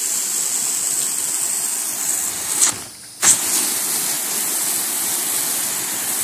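Garden hose jet spraying hard onto a pool cage screen, a steady hiss of water blasting leaves off the screen. The spray sound drops out briefly about three seconds in, then comes back.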